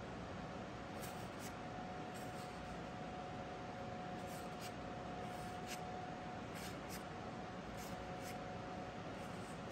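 Short, soft swishes of trading cards sliding against each other as a stack of Magic: The Gathering cards is flipped through one card at a time, about once a second and often in pairs, over a faint steady hum.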